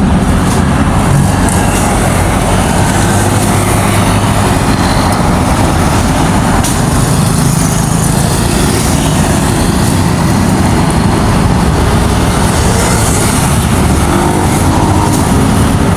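A motor vehicle engine running steadily, with continuous road and wind noise.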